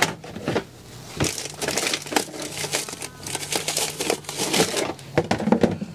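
Rustling and crinkling of plastic, with scattered clicks and knocks, as bait is handled out of a cool box.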